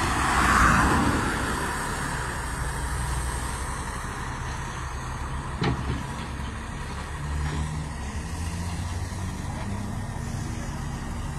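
Motor traffic running nearby with a steady low engine rumble; a vehicle passes close, loudest about a second in. A single sharp click comes about halfway through.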